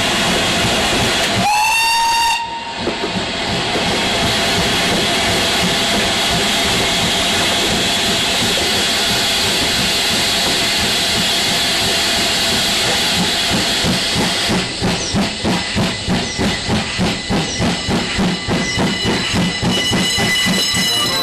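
Steam locomotive: a short whistle that rises in pitch about two seconds in, over a loud steady hiss of steam. About three-quarters of the way through, regular exhaust chuffs start at about three a second.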